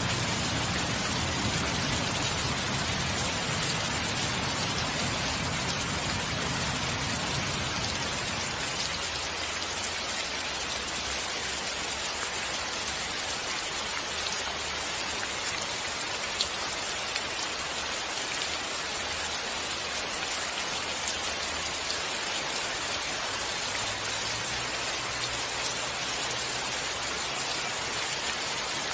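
Steady rain with a low rumble of thunder that fades away about eight or nine seconds in; a fainter low rumble returns near the end.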